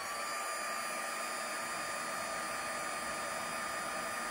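Handheld embossing heat tool blowing hot air steadily to shrink heat-shrink tubing, its fan hiss carrying a steady whine that settles right at the start after the motor spins up.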